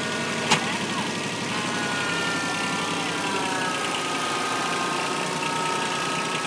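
A backhoe's motor running steadily as it is driven, with a steady whine over it and one sharp click about half a second in.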